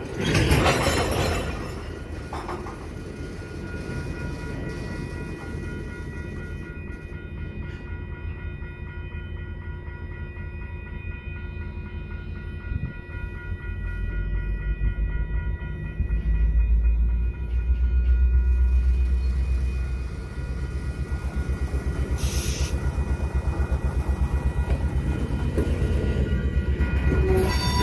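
Freight train of covered hopper cars rolling slowly past, a continuous low rumble and rattle of the cars that grows heavier about halfway through. Faint steady high tones sit above it, and a short hiss comes about three-quarters of the way through.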